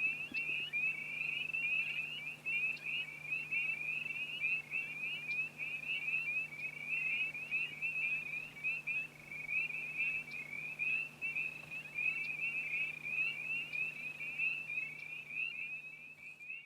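A chorus of frogs: many short, high calls overlapping without a break, with a faint steady low hum beneath. It fades out at the very end.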